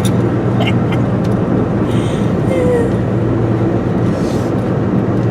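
Steady road and engine noise inside a moving car's cabin, with a low, even hum.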